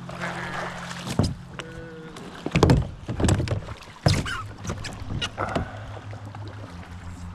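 Kayak paddling on a creek: paddle blades splash and clunk in a run of sharp strokes between about one and six seconds in, over a steady low hum.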